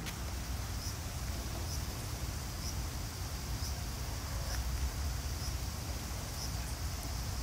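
Outdoor ambience: a steady low rumble, likely wind on the microphone, with a faint high chirp repeating about once a second.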